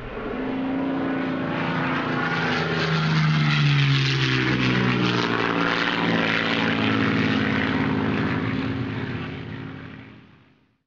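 Propeller airplane flying past: the engine drone swells, drops in pitch as it passes about four seconds in, then fades away near the end.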